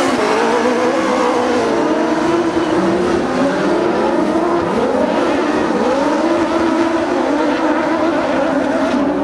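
Several Buggy 1600 autocross buggies racing through a dirt corner. Their high-revving engines overlap, each rising and falling in pitch as they accelerate and ease off.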